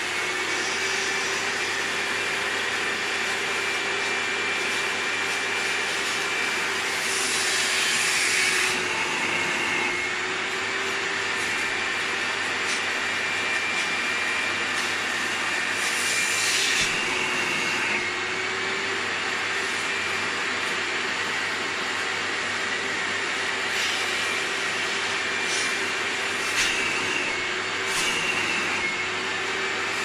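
Thomas washing vacuum cleaner running steadily while its upholstery nozzle extracts over a wet fabric chair seat, its motor hum shifting slightly in pitch now and then. Several brief hissing surges come through, the longest about a quarter of the way in and another near the middle.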